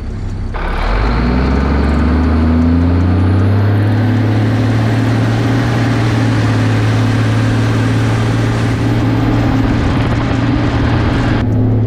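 Fire truck's diesel engine pulling away, its pitch rising over the first few seconds and then holding steady as the truck cruises, with tyre and road noise heard close to a rear wheel.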